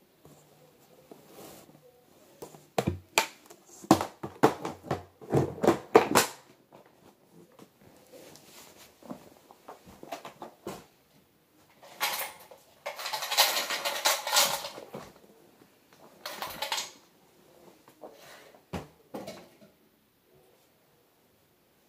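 Plastic parts of an upright vacuum cleaner being handled with the motor off. A quick run of clicks and knocks comes a few seconds in, then a longer stretch of scraping and rattling around the middle, then a few scattered knocks.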